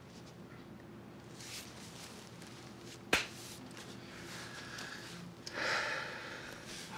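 A man breathing heavily and sniffing in a small quiet room, with one sharp click about three seconds in.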